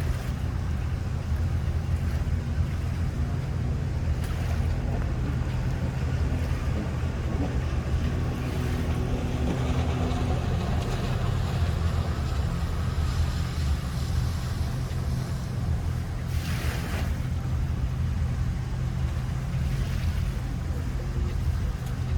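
Motorboat engine running steadily at low speed, a continuous low rumble, with a short burst of noise about sixteen seconds in.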